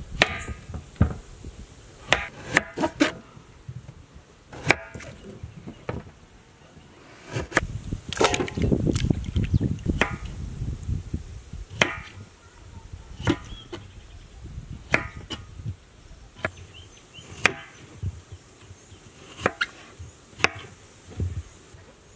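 Knife cutting raw potatoes on a plastic cutting board: irregular sharp knocks as the blade meets the board, with a denser stretch of cuts about eight to ten seconds in.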